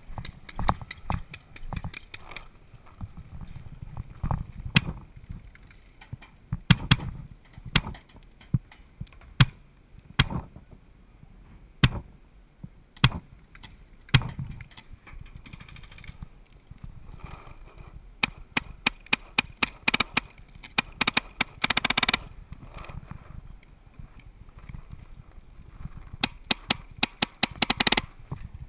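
Paintball markers firing: scattered single shots in the first half, then rapid strings of shots in the second half, the densest run near the end.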